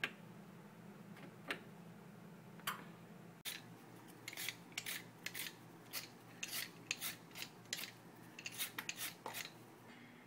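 A kitchen blade rasping through raw sweet potato in short, uneven strokes: a few at first, then many in quick succession from about four seconds in.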